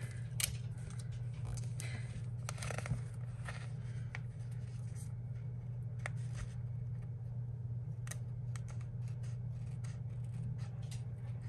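Scissors snipping and trimming around a sticker, a scattered run of small clicks and rustles, over a steady low hum.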